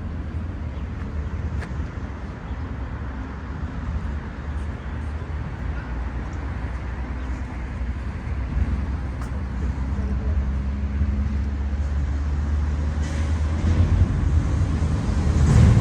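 Road traffic rumbling steadily, with a vehicle's hum in the middle and a louder swell near the end as a vehicle passes closer.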